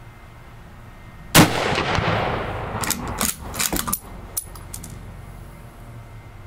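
A single shot from a scoped Mosin-Nagant bolt-action rifle in 7.62x54R about a second and a half in, loud and echoing as it dies away over a second or so. It is followed by a quick run of sharp metallic clacks as the bolt is worked.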